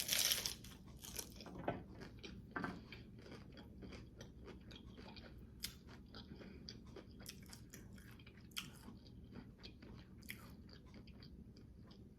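Close-miked eating of a crunchy low-carb taco: a loud crunching bite right at the start, then quieter chewing with scattered small crunches.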